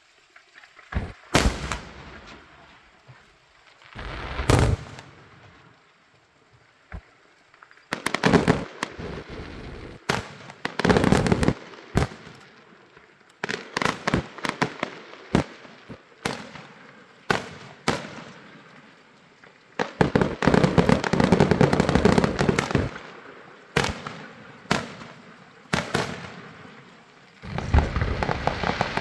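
Aerial fireworks going off: sharp bangs with crackling tails. They start sparse, then come in quick clusters, with a long continuous barrage about two-thirds of the way through and another beginning near the end.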